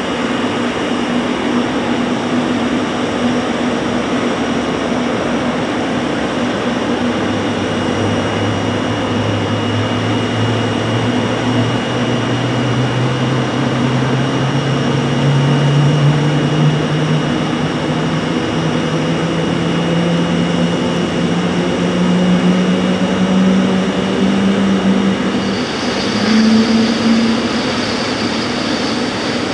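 Boeing 777-300ER on the apron with its GE90-115B jet engines: a steady noise with a thin high whine, and a low hum that rises slowly and evenly in pitch over about twenty seconds as an engine spools up. A higher whine joins near the end.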